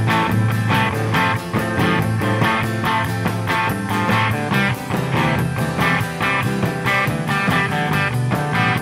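Instrumental passage of a rock song: guitar chords strummed to a quick, even beat, with no singing.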